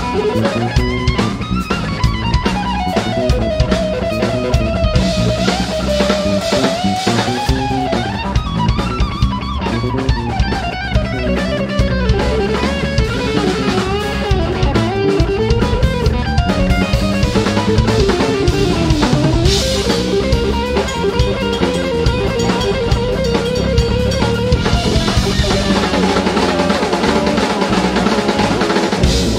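Live instrumental fusion played by a trio of electric guitar, electric bass and drum kit in an odd time signature. A lead line glides and bends up and down over steady drumming and bass.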